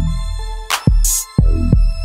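Backing music with a heavy beat: deep bass-drum hits with a low bass tone and a snare hit about two-thirds of a second in.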